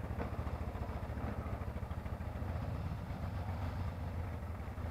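Motorcycle engine idling with a steady low pulse.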